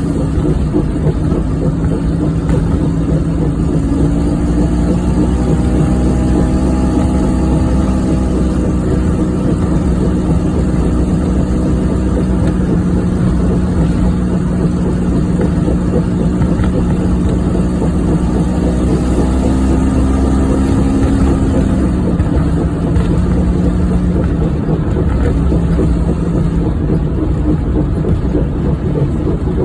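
1994 Geo Metro's small three-cylinder engine and road noise heard while driving, with a steady low drone under it from a bad wheel bearing. The engine note rises a few seconds in and drops back down a little past the middle.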